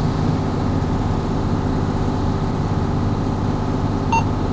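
A 1990 Seagrave fire engine's Detroit Diesel 6V92, a two-stroke V6 diesel, idling steadily. A short electronic beep sounds once about four seconds in.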